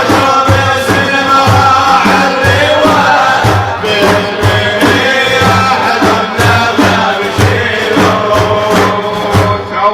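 Group of men chanting an Islamic praise song (madih) in unison over a steady struck beat, about two beats a second.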